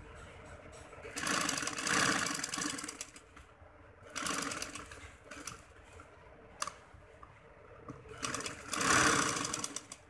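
Sewing machine stitching through fabric in three short runs of rapid clatter with pauses between them, and a single sharp click in the middle pause.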